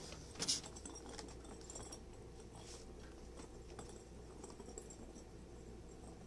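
Light, scattered taps and clicks of a small ball being knocked about by a pet on a rug and tile floor, with one sharper knock about half a second in.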